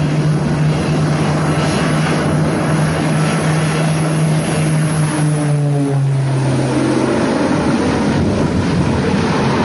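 Twin-engine propeller aircraft taking off, its engines and propellers droning loudly. The drone drops in pitch about six seconds in as the plane passes.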